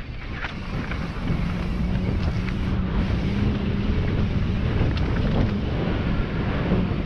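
Wind rushing over the microphone as a mountain bike descends a dirt trail at speed, with tyres rolling over dirt and scattered knocks and rattles from the bike.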